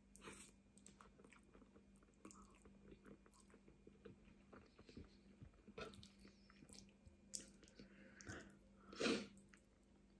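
Faint chewing and mouth sounds of a person eating spaghetti bolognese, with small clicks of a fork in the pasta on a wooden board. A brief louder noise comes about nine seconds in.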